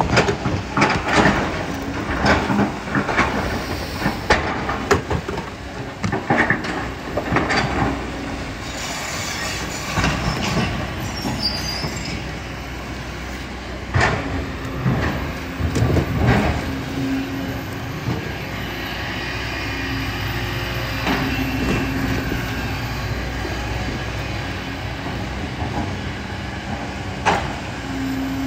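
Kobelco excavator's diesel engine running steadily under load, with clanks and knocks of the steel bucket scraping and striking rocks and gravel, busiest over the first several seconds and again about halfway through.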